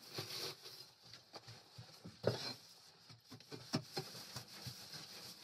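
Irregular scraping and knocking of a long-handled tool clearing straw bedding from a chicken coop floor, with the sharpest knock about two seconds in and a cluster of knocks a little later.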